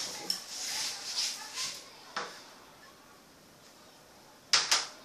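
Handling noise: soft rustling and scraping for about two seconds, then two sharp clicks in quick succession near the end.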